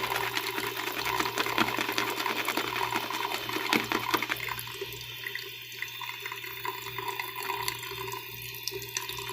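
Water running from a tap into a sink, with splashing and crackling for the first four seconds or so, then a quieter, steadier flow.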